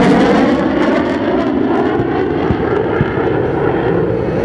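Jet engine noise of a fighter flying a tight, high-G pass overhead: a loud, steady rushing rumble whose hiss fades a little in the first second as the jet moves away.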